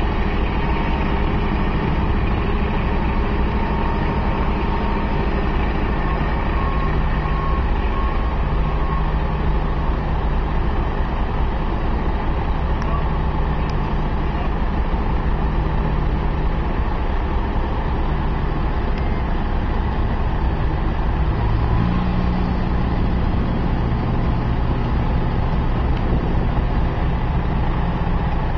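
Heavy diesel engine of road-construction machinery running steadily, its note stepping up a little about three-quarters of the way through.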